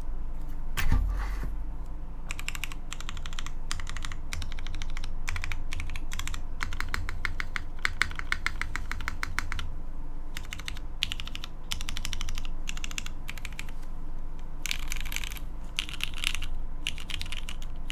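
Typing on a Forever65 mechanical keyboard with lubed linear MX Black Hyperglide switches, a carbon fibre plate and GMK keycaps: fast runs of keystrokes broken by short pauses, with one louder low thump about a second in.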